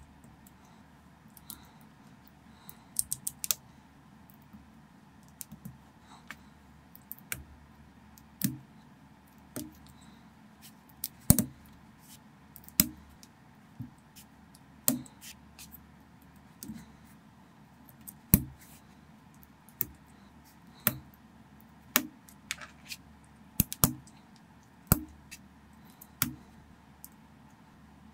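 Small plastic building bricks clicking and snapping as they are pressed together and handled: irregular sharp clicks, a few much louder snaps.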